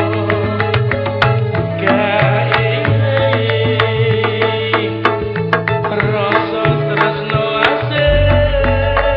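Background music with a regular percussion beat over held bass notes; a lower bass note comes in near the end.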